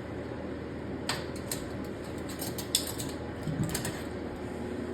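A few light clicks and taps from handling a fish and the scale while weighing perch, over a steady low hum.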